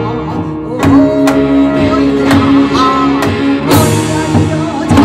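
Korean traditional instrumental ensemble playing, gayageum among it: a held melody line over plucked strings, marked by sharp percussion strokes, one of them ringing on a little under four seconds in.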